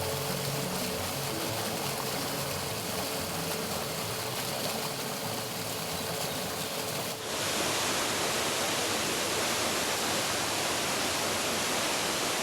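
Waterfall and stream water rushing steadily. About seven seconds in it changes abruptly to a louder, brighter rush.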